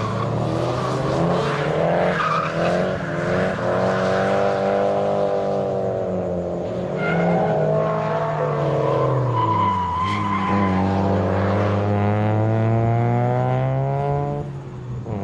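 Drift cars' engines revving up and down through the corners, the pitch rising and falling again and again, with short spells of tyre squeal as the cars slide.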